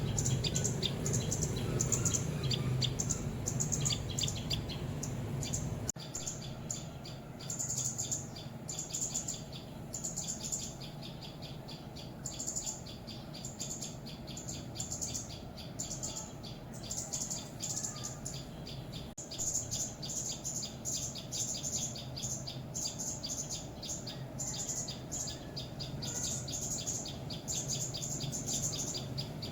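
Small songbirds, bulbuls and tailorbirds, giving fast runs of sharp, high chirps, the scolding alarm calls of birds mobbing a predator. A steady low hum underlies the first few seconds and drops away suddenly.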